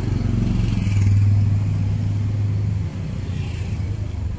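A motor vehicle's engine running close by as it passes: a steady low hum that is loudest about a second in and drops away just before three seconds, over street traffic noise.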